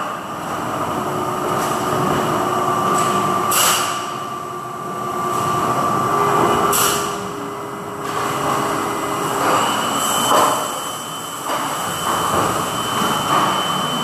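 Injection moulding machine running in a factory: a steady mechanical hum with a few steady whining tones, broken by short bursts of hiss about three seconds apart.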